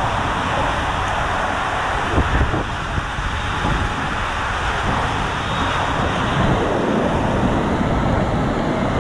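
Steady rushing of water and air inside an enclosed water-slide tube as a rider on an inner tube slides through it, with low rumbling underneath.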